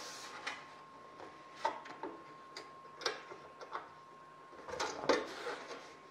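Scattered light clicks and taps of sheet-aluminium aileron nose skin and small C-clamps being handled as the skin is pushed back and clamped down over the nose ribs. There is a cluster of sharper taps about five seconds in.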